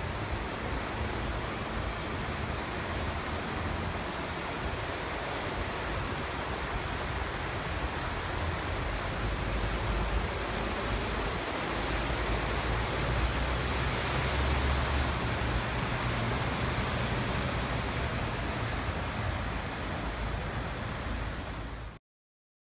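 Steady rushing noise of a heavy downpour and floodwater on a flooded street, with a low rumble underneath, as vehicles wade through the water; it swells slightly midway and cuts off suddenly near the end.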